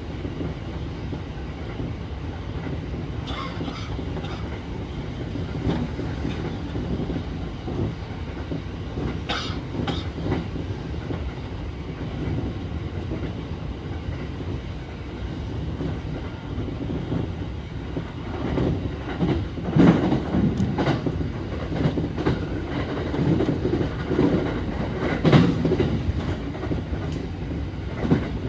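Electric train running on the Tokaido Line, heard from on board: a steady low rumble of wheels on rail with occasional sharp clicks. From about two-thirds of the way in there is a run of heavier clacks over rail joints.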